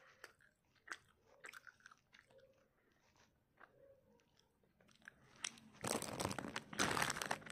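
Someone chewing a gummy candy with the mouth closed: soft, wet clicks and smacks. About five and a half seconds in, a plastic candy bag crinkles and rustles loudly for about two seconds as it is handled.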